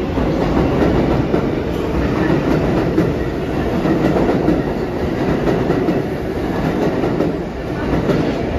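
A New York City subway train on the IRT Lexington Avenue line running through the station: a loud, steady noise of wheels on rails that starts to die down near the end.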